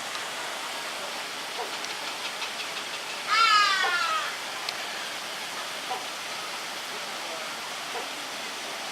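A bird gives one loud, harsh call of about a second, about three and a half seconds in, falling in pitch. Under it runs a steady rush of falling water, with faint short chirps scattered throughout.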